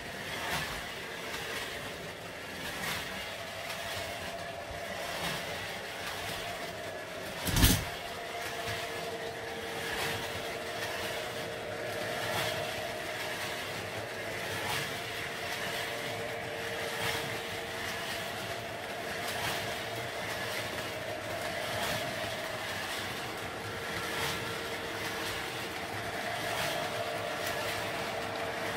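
O-scale model train running on three-rail track: a continuous clicking rattle of the wheels over the track, with a steady motor tone underneath. One sharp knock about eight seconds in.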